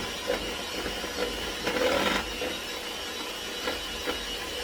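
Electric hand mixer running steadily with a constant whine, beating cheesecake filling in a bowl. Several short knocks and clatters sound over it, loudest about two seconds in.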